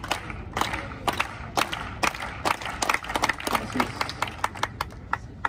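Scattered applause from a small crowd of spectators: quick, irregular hand claps that thin out near the end.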